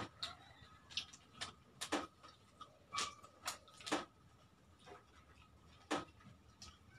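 Close-up eating noises from people eating by hand: chewing and lip-smacking heard as irregular sharp clicks and smacks, about eight in all, with a longer gap about five seconds in.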